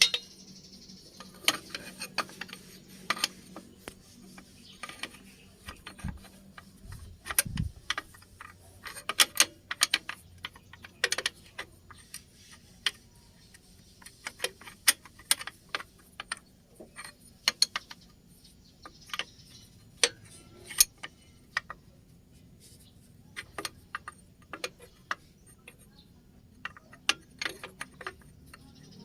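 Irregular metallic clicks and clinks of hand tools on bolts and engine parts while a car's drive belt tension is adjusted, with a couple of duller knocks about six to seven and a half seconds in.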